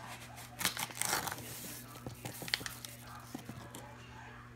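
Short rustling, crinkly bursts and a few light clicks of kitchen handling while dry sugar is measured out with a measuring cup, over a steady low hum.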